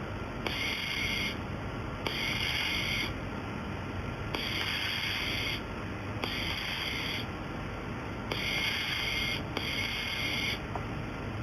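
A welding machine firing in six short runs of about a second each, with brief pauses between them: a hissing buzz that starts and stops with each weld.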